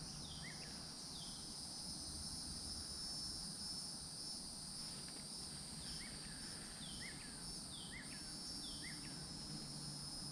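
Steady, high-pitched insect chorus, with a bird giving short falling chirps, a few near the start and a run of them in the second half.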